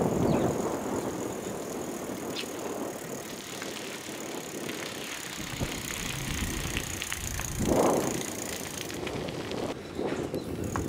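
Bicycles rolling along a paved street: tyre and road noise with wind on the microphone and small rattles and clicks, and one louder gust about eight seconds in. A steady high whine runs underneath and stops about nine seconds in.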